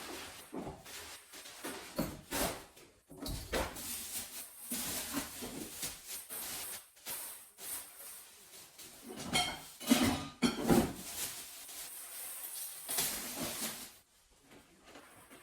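Irregular clattering and knocking of hard objects being handled, loudest about ten seconds in and falling away near the end.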